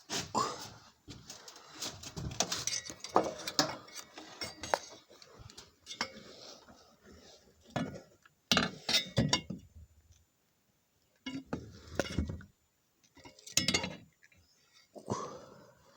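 Metal objects clinking and clattering in irregular bursts of sharp knocks, with a short pause about two-thirds of the way through.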